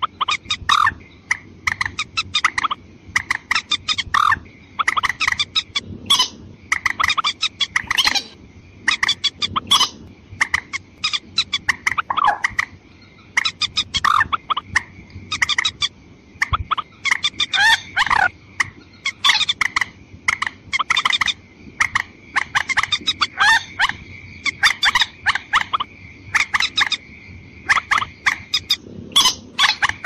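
Watercock calls played as a lure: rapid series of short, sharp clucking notes repeating over and over, with a steady high tone running underneath most of the time.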